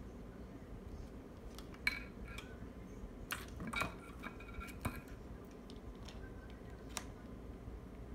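Sharp clicks and light clinks of small plastic and metal power connectors and wires being handled and plugged together on a micro quadcopter, a few separate clicks, some with a brief ringing edge.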